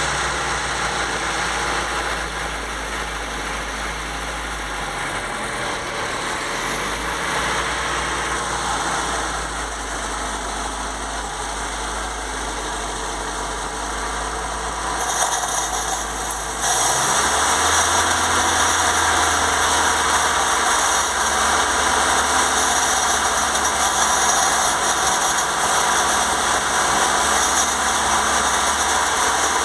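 FSC Żuk's carburetted four-cylinder petrol engine idling steadily while it burns off a dose of ATF fed through the carburettor. About seventeen seconds in, the engine speed rises a little and it gets louder.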